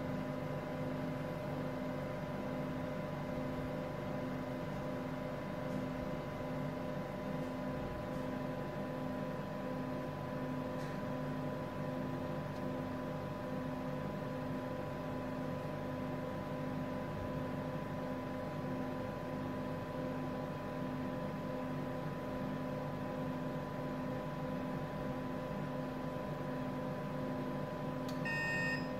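INFICON Ecotec E3000 leak detector running steadily as it finishes its start-up, its turbomolecular pump spun up to about 1000 Hz: an even mechanical hum with a steady high tone. A short beep sounds near the end.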